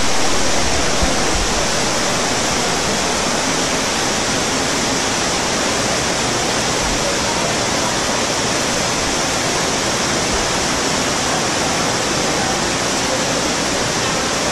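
Heavy rain in a downpour: a steady, dense hiss of rain pouring down.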